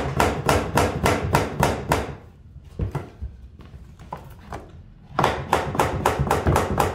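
Quick knocks, about five a second, on a vinyl plank offcut used as a tapping block, driving a vinyl plank's edge into its click-lock joint. The knocks come in a run at the start, a few single ones, then a second run from about five seconds in.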